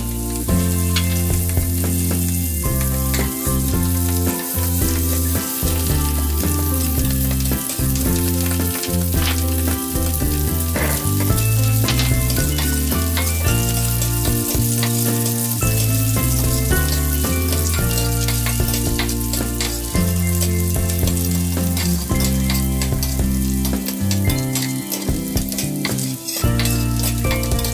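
Butter and whole garlic cloves sizzling in a hot stainless steel frying pan, with the clicks and scrapes of a spatula stirring them, over background music.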